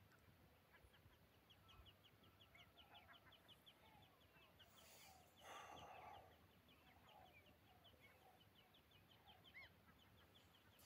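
Faint birds calling in quiet open air: a long run of quick, high ticking notes, about five a second, with scattered short chirps. A brief louder sound comes about halfway through.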